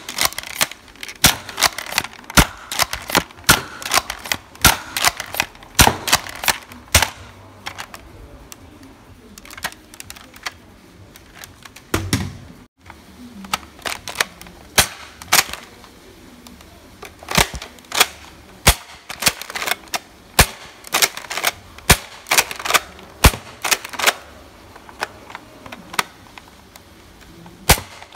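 Nerf foam-dart blasters being primed and fired, first an Elite 2.0 Commander, then an Elite 2.0 Echo after a short break about halfway through. The sound is a series of sharp plastic clacks in quick irregular runs.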